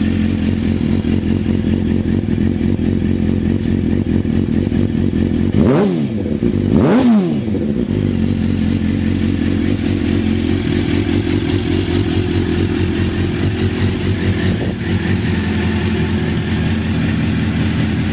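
Suzuki GSX-R600 inline-four engine idling steadily, blipped twice, about six and seven seconds in, each rev rising and dropping back quickly. The idle is one the seller calls good, with no abnormal noise.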